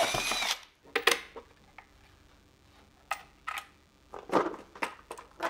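A power drill cutting holes in a plastic barrel lid stops about half a second in. Then come scattered clicks and knocks of the tool and plastic being handled.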